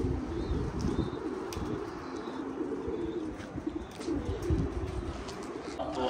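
Pigeons cooing, with repeated low wavering coos and a few faint higher chirps.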